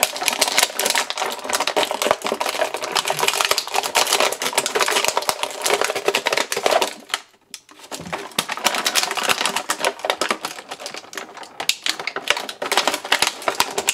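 Clear plastic packaging crinkling and crackling as it is handled: a thin blister tray and a plastic bag being worked off an action figure, with a brief pause about seven seconds in.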